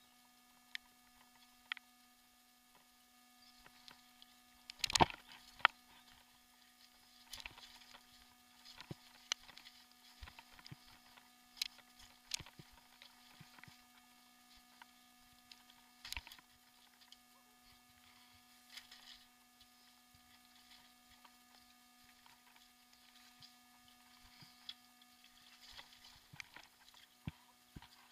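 Mountain bike rattling and knocking over a bumpy dirt trail: faint scattered clicks and thuds, with sharper knocks about five seconds in and again near sixteen seconds, over a faint steady hum.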